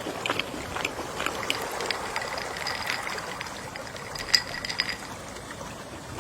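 Gentle sea waves lapping, with many small scattered clicks and knocks over the water noise and a faint thin high tone in the middle.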